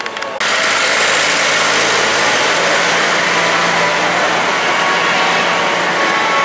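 Motor vehicle noise: a steady, loud hiss-like rumble of an engine and road. It starts abruptly about half a second in and holds evenly.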